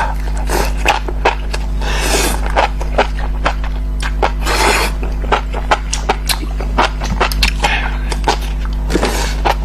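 Close-miked eating of spicy enoki mushrooms: wet chewing and smacking, with many irregular sharp clicks and a few longer slurping or breathy hisses.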